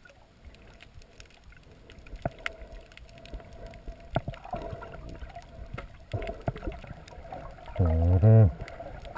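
Underwater ambience heard through a submerged camera: scattered sharp clicks and crackles over a faint steady hum. About eight seconds in comes a loud, low, voice-like hum with a wavering pitch, lasting under a second.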